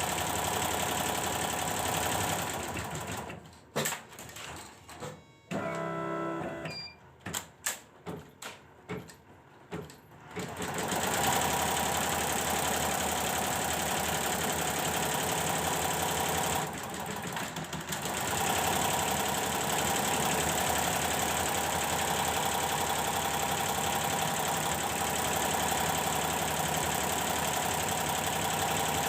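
Computerized embroidery machine running on a test after repair of its DU power supply, the needles stitching with a dense, steady clatter. About three seconds in, the running sound drops away to a string of separate clicks and knocks for several seconds, then the stitching resumes at full speed, with a brief dip later on.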